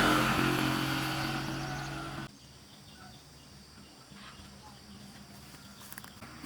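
An engine running steadily, fading a little and then cutting off abruptly about two seconds in, leaving faint outdoor background.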